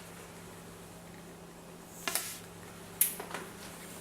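Two light clicks about a second apart from handling the pellet rifle, over a steady low hum.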